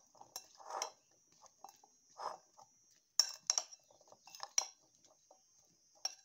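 Metal spoon clinking and scraping against a glass bowl while tossing seasoned banana pieces: several sharp clinks with a bright ring, the loudest about three seconds in, between softer sounds of the pieces being turned.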